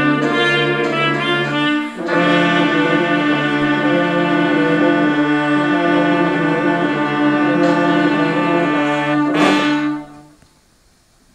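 Brass ensemble playing held chords, with a brief break about two seconds in and then one long sustained chord. A sharp hit sounds just before the chord stops, about ten seconds in.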